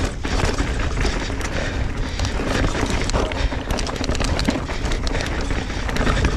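Mountain bike ridden along a rough trail: a constant rush of tyre and wind noise with many quick rattles and knocks as the bike goes over the rough ground.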